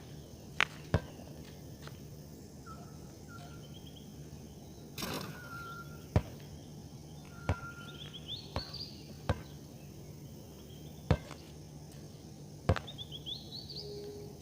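Small birds calling with short chirps, brief whistles and quick rising trills, over a steady low hum. Sharp, loud clicks come every second or two: two near the start, then five more spread through the rest.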